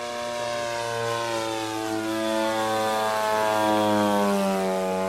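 The 50 cc two-stroke gas engine and propeller of an RC Yak 54 model plane in flight, a steady buzz. Its pitch falls slowly through the middle and it grows a little louder.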